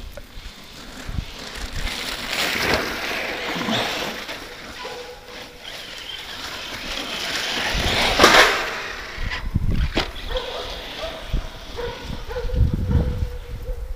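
Brushless 4WD RC truggy (Losi Tenacity T on a 2S LiPo) driving across grass, its motor and tyres swelling and fading as it runs about, loudest about eight seconds in.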